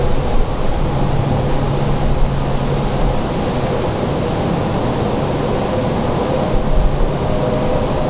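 Steady wind noise: an even rushing hiss with low rumbling gusts on the microphone.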